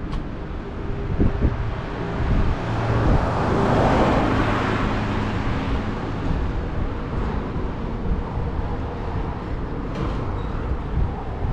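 Road traffic going by, with one vehicle passing close and loudest about four seconds in, over a steady low rumble.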